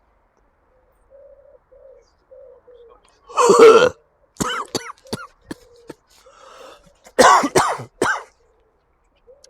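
A man's forced, exaggerated smoker's cough with spluttering: a long harsh cough about three seconds in, then a string of short sharp coughs, then another hard fit of coughing near the end.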